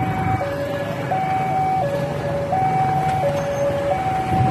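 Electronic railway level-crossing warning alarm sounding its two-tone signal, a higher and a lower tone alternating, each held just under a second, warning that a train is approaching. A steady low rumble runs underneath.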